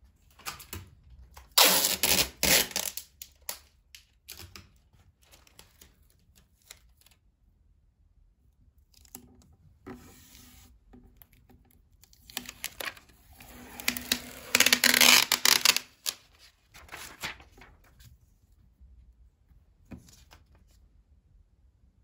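Loose sheets of old book paper rustling and crinkling as a hand handles and smooths them on a hard tabletop. The sound comes in two loud spells, the first about two seconds in and the second lasting several seconds from about twelve seconds in, with lighter rustles and small taps between.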